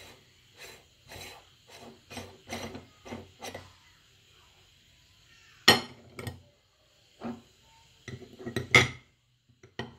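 The threaded metal front ring of a hand-cranked meat grinder is unscrewed in short scraping turns, about two a second. After that, metal grinder parts clink sharply against a glass bowl a few times, loudest about six and nine seconds in.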